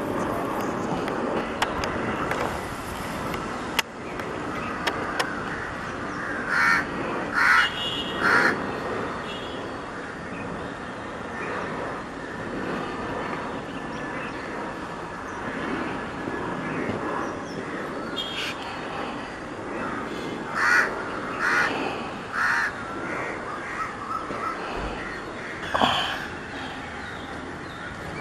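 Crows cawing in short repeated bursts, a cluster about a quarter of the way in and more in the second half, over a steady rushing background of distant aircraft noise.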